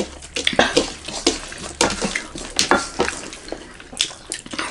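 Close-up eating sounds: fingers squishing and mixing moist crushed-maize rice with curry, with many short, sharp wet smacks and clicks of chewing and lips.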